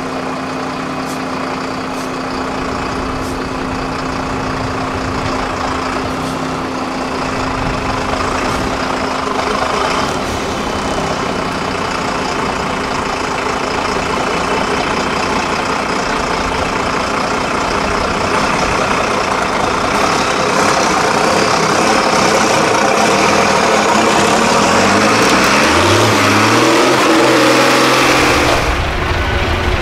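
Diesel engine of a 6x6 prototype trial truck working under load as it crawls through a deep rut, its pitch climbing in steps near the end as the truck drives out.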